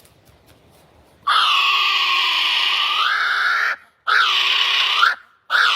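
An animal calling loudly three times: one long call of about two and a half seconds, then two shorter calls, each bending up and down in pitch.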